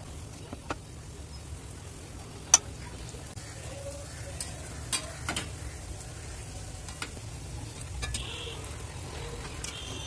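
Batata vadas, gram-flour-battered potato balls, deep-frying in hot oil in a steel kadhai: a steady sizzle with scattered sharp crackles and one loud click about two and a half seconds in.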